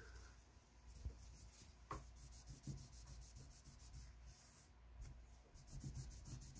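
Faint rubbing of a cloth rag wiping down the top of a stainless steel rifle receiver, with a couple of light ticks.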